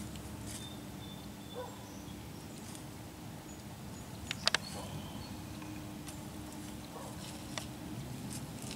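Whitetail deer walking through dry leaves and brush: faint, scattered rustling steps, with two sharp clicks close together about halfway through.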